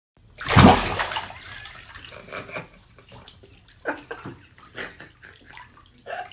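Bathwater splashing in a bathtub, with one loud splash about half a second in, then quieter sloshing and small splashes.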